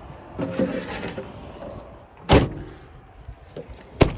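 Light handling clatter, then two loud, sharp thumps about a second and a half apart, from a pickup truck's door or bed hatch being shut.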